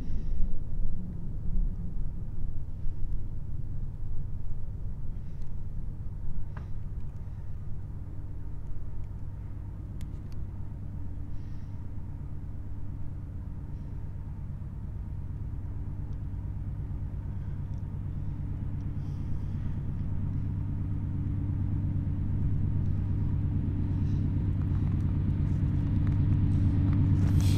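Diesel locomotives of an approaching freight train: a low rumble with a steady engine drone that comes in about eight seconds in and grows louder toward the end.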